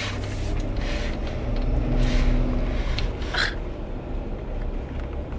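Road and engine noise heard inside a moving car: a steady low rumble with passing swells of tyre hiss, and a short burst of hiss about three and a half seconds in.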